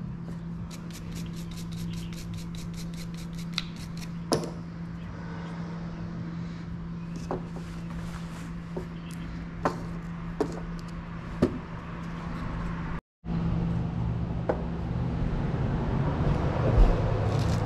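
Bolts and small metal parts clicking and clinking every second or two as they are handled on a rubber tool mat, over a steady low hum.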